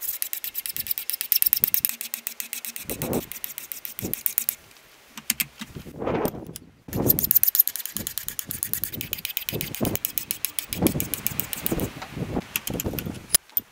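Hand file rasping across a steel hatchet edge in quick repeated strokes, sharpening the bevel. The filing breaks off about four and a half seconds in and resumes near seven seconds, with gusts of wind rumbling on the microphone.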